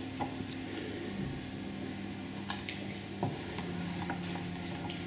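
Glue stick being rubbed over brown paper on a notebook cover: a quiet rubbing with a few light ticks.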